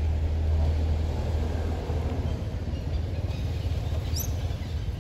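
Low, steady motor-vehicle engine rumble that eases off about two seconds in, with a brief high rising chirp near the end.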